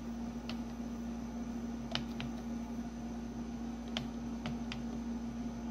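Keys pressed one at a time on a Compaq LTE/286 laptop keyboard, about six separate clicks, over a steady low hum.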